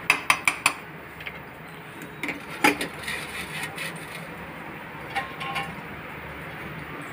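Spoon clinking against a steel kadhai while stirring a simmering jackfruit curry: a quick run of about five clinks in the first second, a single louder knock about two and a half seconds in, then a few faint taps over a steady low background hiss.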